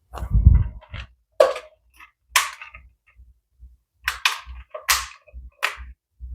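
A woman coughing: a run of about eight short coughs, irregularly spaced, from a cough she describes as hacking 'like a shoemaker'.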